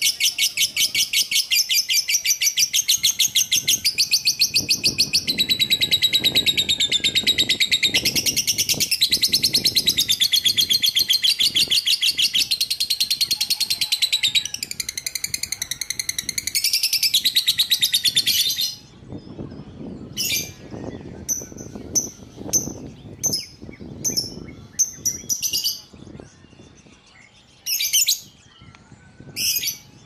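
Caged songbird singing one long, very fast trill that shifts in pitch and pattern every second or two, for about eighteen seconds. It then breaks into short, separate chirps.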